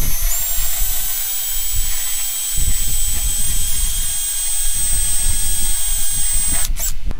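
Cordless drill spinning a flap wheel inside a hole in a welder's sheet-metal panel, sanding off the hole's rough edges. The motor's high whine rises as the drill spins up at the start, holds steady, and stops near the end.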